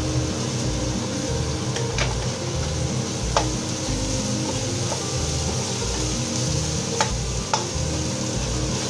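Wooden spoon stirring ginger, onion and garlic sautéing in oil in an aluminium pot, with a steady sizzle. The spoon knocks sharply against the pot four times.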